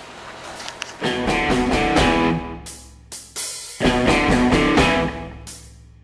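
Background rock music with electric guitar and drums, starting about a second in.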